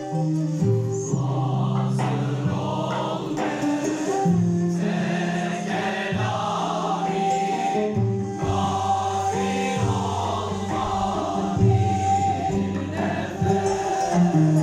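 Large male choir singing a slow melody of long held notes, accompanied by a Turkish classical ensemble of ney flutes, kanun, oud and drums.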